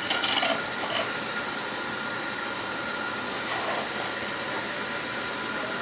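Beckett oil burner firing and running: a steady rushing of blower and flame with a thin steady whine over it, while its fuel pump is being bled.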